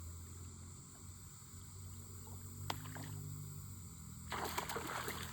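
A fish striking a topwater frog lure, splashing at the pond's surface for about a second near the end, after a single sharp click about halfway through.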